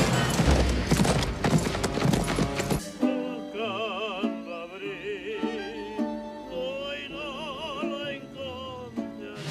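Horses galloping on dirt for about the first three seconds, a dense clatter of hooves. It then breaks off into Mexican-style music: guitar with a wavering, vibrato melody line above it.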